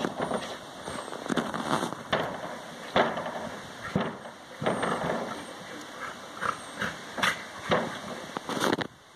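Two dogs play-fighting at close quarters, growling and grunting in irregular bursts, with a few sharp sudden sounds from their wrestling.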